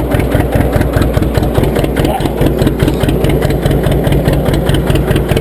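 John Deere 720's two-cylinder engine idling with a steady, even beat.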